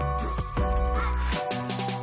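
Background electronic hip-hop style music with a beat and deep bass.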